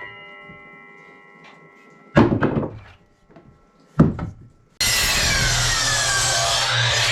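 Two wooden knocks as lengths of 2x6 lumber are handled. Then a power saw starts abruptly and runs loudly through a cut, its pitch sagging under load and recovering near the end.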